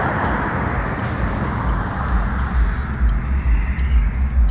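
Road traffic heard from inside a stopped car. About halfway through, the passing-traffic noise fades and a low rumble takes over, with faint, evenly spaced ticks from the hazard-light flasher.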